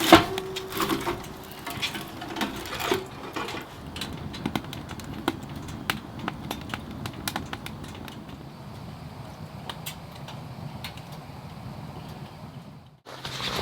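Irregular light clicks and knocks, denser in the first few seconds, over a faint steady background; the sound cuts off suddenly near the end.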